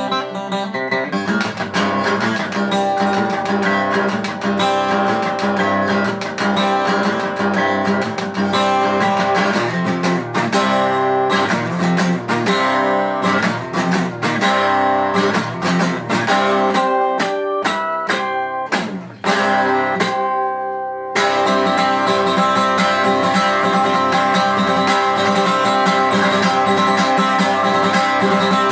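Acoustic guitar playing an instrumental piece live: rapid picked notes, a brief dip in level about 19 seconds in, then steady chord strumming.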